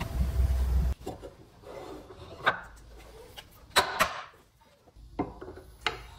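A steady low rumble that cuts off about a second in, followed by a few sharp wooden knocks and clacks, as of wooden pieces being set down and handled, with faint rubbing between them.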